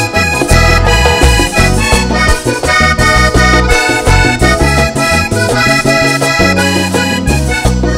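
Vallenato band playing an instrumental passage: a button accordion leads with many quick notes over electric bass, drums and a scraped metal guacharaca, keeping a steady beat.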